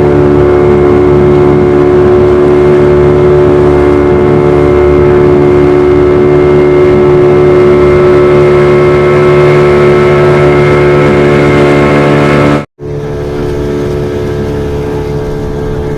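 Motorboat engine running steadily at an unchanging pitch. It cuts out for a split second about thirteen seconds in and picks up again a little quieter.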